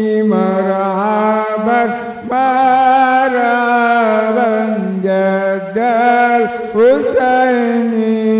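A man's voice chanting an Arabic devotional salawat through a microphone, drawing out long, wavering held notes between the words, with short breaths about two, five and a half and seven seconds in.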